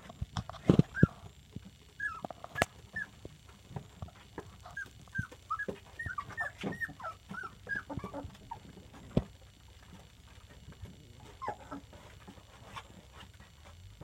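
Three-week-old puppies whimpering and squeaking in many short, high, falling cries, thickest from about two to eight seconds in, with a few sharp knocks between them. The puppies are hungry and looking for their dinner.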